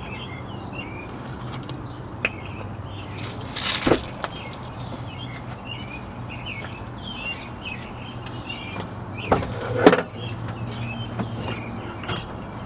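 Birds chirping over a steady low hum, broken by a few short, sharp noises about four seconds in and again twice around nine and a half to ten seconds in.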